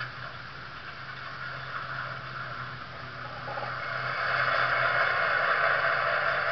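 Sound decoder of a Broadway Limited Imports N scale E8 diesel model playing a recorded diesel-locomotive engine idle through its tiny onboard speaker: a steady low hum under a band of hiss. About four seconds in it gets louder and hissier.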